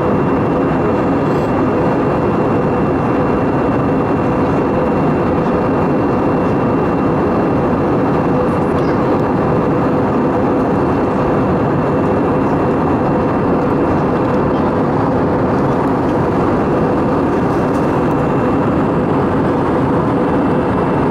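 Airbus A320 in flight heard from inside the passenger cabin: a constant rush of engine and airflow noise, with a steady hum and a faint high whine running through it.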